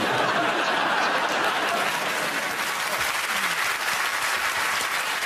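Studio audience applauding: steady, loud clapping from a large crowd that eases off slightly toward the end.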